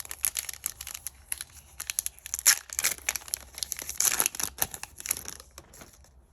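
Foil wrapper of a Pokémon XY Evolutions booster pack crinkling and tearing as it is opened: a dense run of crackles, loudest about two and a half and four seconds in, dying away near the end.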